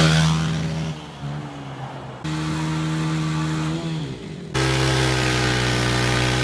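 Honda CRF150F dirt bike's single-cylinder four-stroke engine revving hard. At the start it is loudest as it goes by in a wheelie and then falls away. After two abrupt cuts it is held at steady high revs while the rear tyre spins in a smoky burnout, with a hiss over the engine in the last part.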